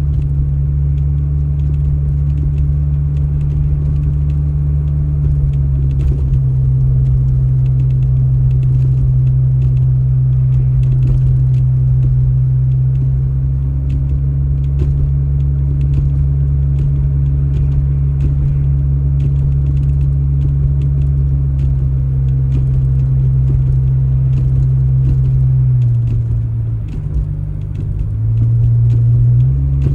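An engine running steadily with a deep, even drone; near the end its pitch and level drop for a couple of seconds, then come back up.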